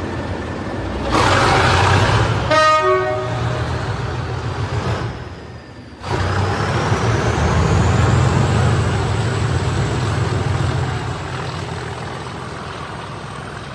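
Diesel locomotive engine running with a low rumble, broken by a short horn-like toot that drops in pitch about two and a half seconds in. After a sudden change near six seconds, the engine runs on with a faint high whine that rises and then holds steady.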